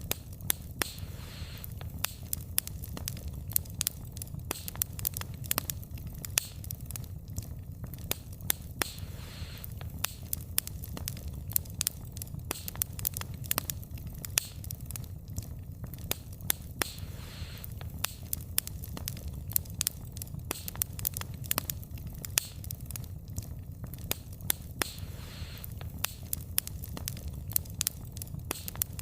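Wood fire burning steadily with frequent sharp, irregular crackles and pops of the burning logs over a low steady rumble.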